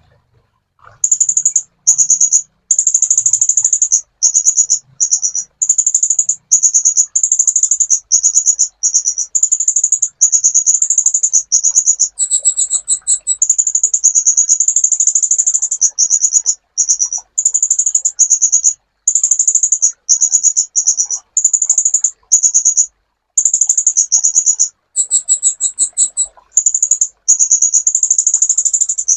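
Sunbird (kolibri ninja) singing: rapid, very high-pitched trilled phrases about a second long, repeated over and over with brief gaps, twice broken by a different, higher phrase.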